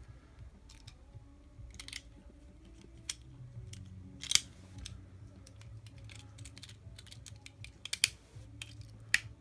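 Irregular small clicks and taps of hands handling the parts of a die-cast toy car, with three sharper clicks about four seconds in, about eight seconds in and near the end.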